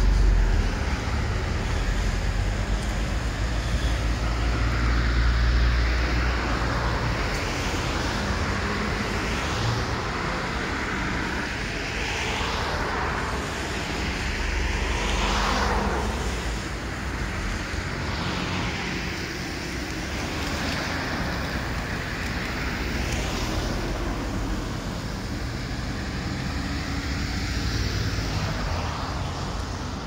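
Road traffic: cars passing one after another, each swelling and fading, with wind rumbling on the microphone through the first several seconds.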